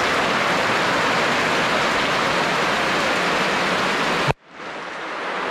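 Heavy tropical downpour: a steady rush of rain pouring off a thatched roof and onto a concrete yard. A little over four seconds in, the sound cuts off sharply and then returns quieter.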